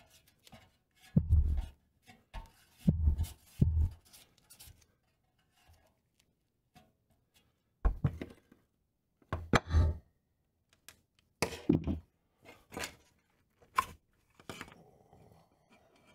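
Hand tools and small pressed-steel toy-truck parts knocking on a steel workbench. It is a string of separate thunks and clicks, loudest in the first four seconds and again around eight to ten seconds in, followed near the end by a short stretch of rubbing.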